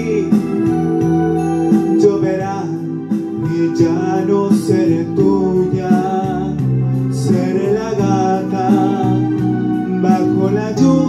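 A man singing a Spanish-language ballad into a handheld microphone over a recorded instrumental backing track.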